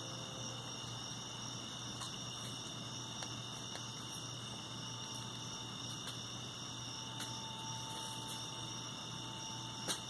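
Steady chorus of night insects, several high-pitched tones running evenly without a break. There is a single sharp knock near the end.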